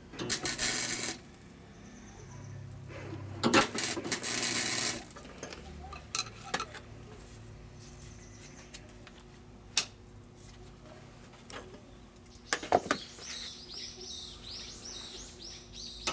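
Two hissing bursts, one about a second long and one about a second and a half, followed by scattered sharp clinks of metal on metal, with quick high chirps near the end.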